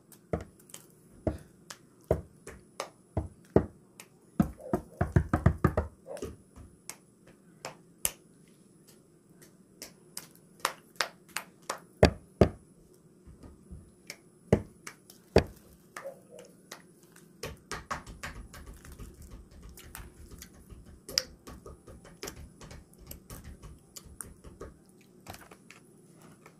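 Chocolate chip cookies being snapped and crumbled by hand over a plastic bowl: sharp, irregular crisp snaps, with a denser run of fainter crackling in the second half.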